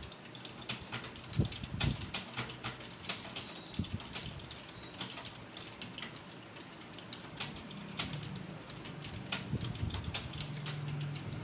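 Computer keyboard keys clicking in quick, irregular strokes as people type. A brief high tone sounds about four seconds in.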